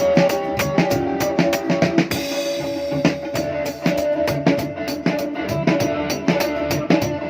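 A band playing a song: a drum kit keeping a steady beat under guitar and held melodic notes, with a cymbal wash about two seconds in.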